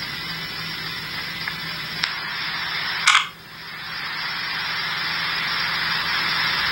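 Police scanner radio stream playing through a phone speaker: steady radio static with no voice on it. A sharp squelch burst comes about three seconds in, then the static swells again and cuts off suddenly near the end, as a keyed transmission drops.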